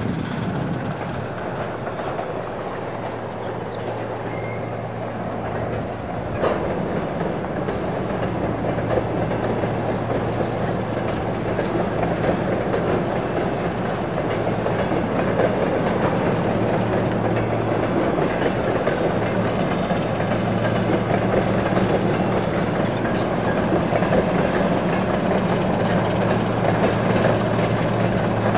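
2TE116 twin-section diesel locomotive pulling a long train of tank cars. Its V16 diesel engines give a steady low drone under the rumble and clatter of the wagons' wheels on the rails, growing slightly louder.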